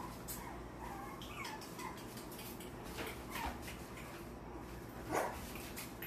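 Yorkie puppies faintly whimpering and yipping, with a few short cries; the loudest comes about five seconds in.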